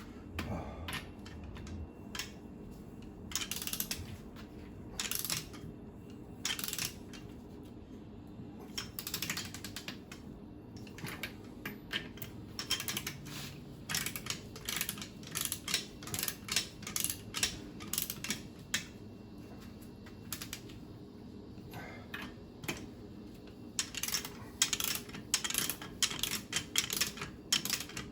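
Ratcheting torque wrench clicking in short quick runs as the stern drive's mounting nuts are tightened to 50 foot-pounds.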